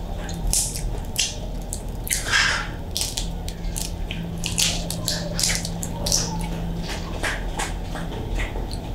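Boiled shrimp shell being peeled apart by hand: an irregular run of sharp crackles and snaps as the shell cracks and pulls away, with a longer crunch about two and a half seconds in.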